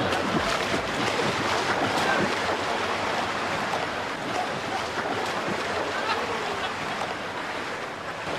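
Water splashing as a swimmer strokes through an indoor pool: a steady wash of splashing with a few sharper splashes in the first couple of seconds.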